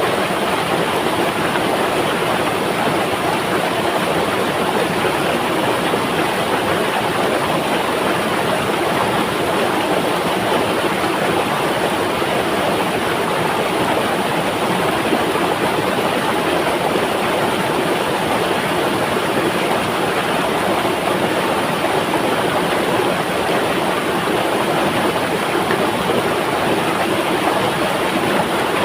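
River water flowing, a steady rushing with no changes or breaks.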